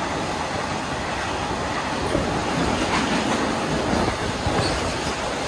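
Freight train of oil tank wagons passing close by at speed: a steady rumble and rattle of wheels on the rails, with a few faint clicks.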